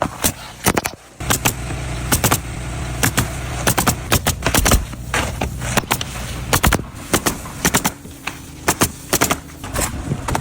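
A motor engine running with a steady low drone, overlaid with many irregular sharp clicks and knocks; the drone drops out briefly about a second in.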